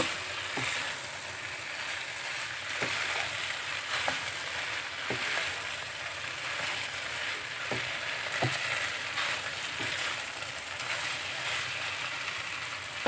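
Hokkien noodles with chicken and vegetables sizzling steadily in a hot pan as they are stir-fried, with a utensil knocking against the pan every second or two as the noodles are mixed.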